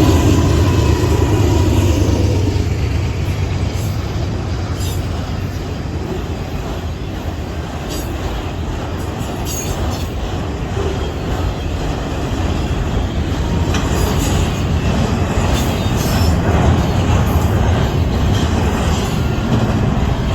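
Norfolk Southern intermodal freight train rolling past: a steady low rumble of wheels on rail with scattered clicks over rail joints, easing slightly a few seconds in, then building again.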